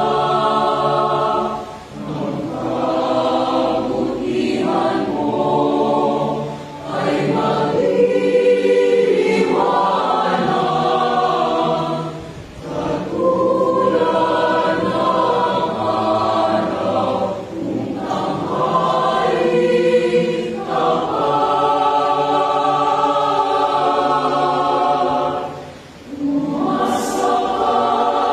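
Mixed choir of men's and women's voices singing a Tagalog contemporary worship song a cappella in several parts. The song goes in sustained phrases, with brief dips for breath between them.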